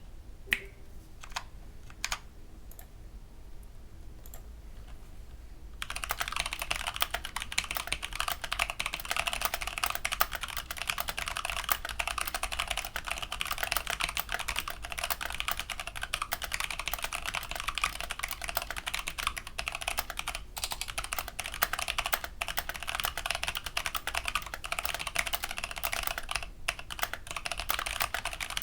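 Hexgears Supernova mechanical keyboard with Kailh BOX Hako Clear tactile switches being typed on. A few single key presses come in the first seconds, then continuous fast typing starts about six seconds in.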